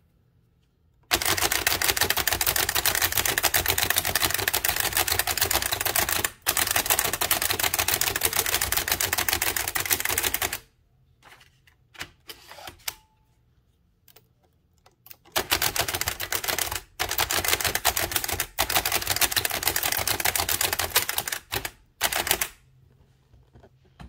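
Bennett type-cylinder typewriter typed at speed: a dense, rapid clatter of keystrokes in two long runs, each lasting several seconds. Between the runs there are a few scattered clicks.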